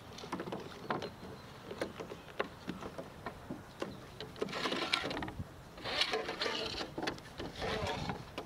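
Rowing scull at rest beside a dock: scattered clicks and knocks from the oars shifting in their oarlocks, with a few short splashy rushes of water as the blades move, about halfway through and again near the end.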